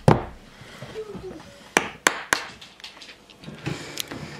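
A hammer knocking on wooden strips at a window frame: several sharp, separate blows at uneven intervals.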